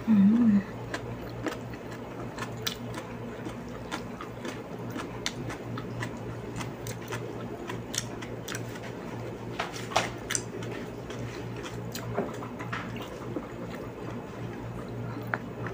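Close-up eating sounds of a person chewing food: irregular wet mouth clicks and smacks, with a steady low hum underneath.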